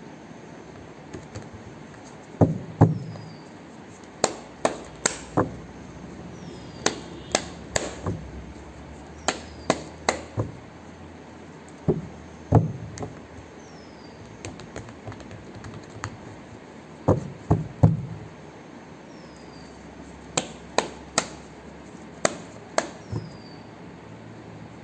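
Deck of tarot cards being shuffled by hand: sharp taps and slaps of the cards, coming in irregular clusters of two to four every couple of seconds.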